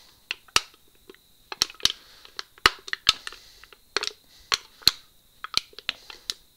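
Thin aluminium beer can being dented by hand, its wall crackling and popping in a run of sharp, irregular clicks.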